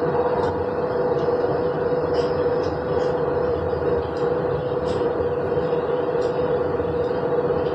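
Passenger train running, heard from inside the carriage: a steady rumble with a constant whine and faint light clicks.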